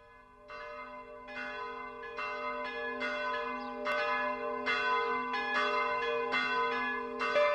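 Bells ringing, a new strike about every second over a steady lingering hum, growing louder.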